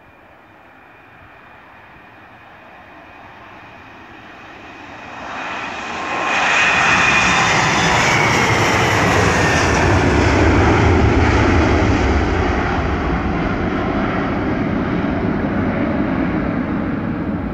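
Embraer E175's twin General Electric CF34-8E turbofan engines at takeoff power, growing louder as the jet rolls toward the listener, turning loud about six seconds in as it passes with a whine that drops in pitch, then a deep rumble as it climbs away.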